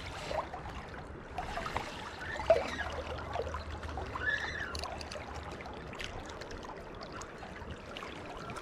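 River water running and trickling around the wading angler, with scattered small clicks and knocks over it.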